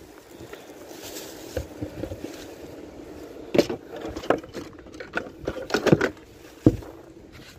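A run of sharp knocks and clatters as fishing rods are handled and laid into a car's boot, bunched in the second half with the sharpest knock near the end.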